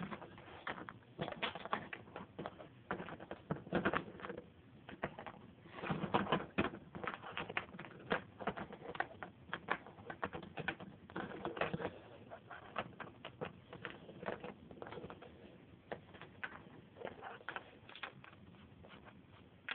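Irregular light clicks and taps, scattered unevenly with a few louder clusters.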